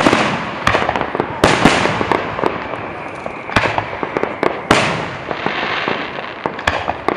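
Fireworks going off: a rapid string of sharp bangs. The biggest blasts, near the start, about a second and a half in, and around three and a half and five seconds, each trail off in a hissing crackle.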